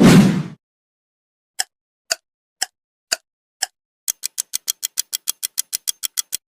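Sound effects from an editing pack: a short heavy impact hit, then five sharp ticks about half a second apart. About four seconds in, the ticking speeds up to about eight ticks a second, like a clock or countdown ticker.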